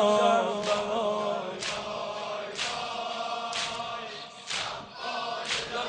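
A large crowd of mourners chanting together in unison, strongest at first and fading after a second or so, over unison chest-beating slaps that keep an even beat of about one a second.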